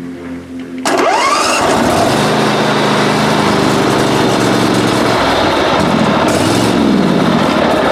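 Great Dane Super Surfer mower's engine starting about a second in, its pitch sweeping up as it catches, then running steadily. The running mower carries a bad-bearing sound from the flat idlers under the hydro pumps, whose bearings have gone.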